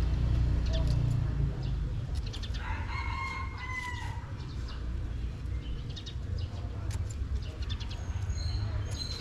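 A rooster crows once, a single drawn-out call of about a second and a half, a few seconds in, over a steady low rumble. Scattered light clicks of scissors snipping vegetable stems.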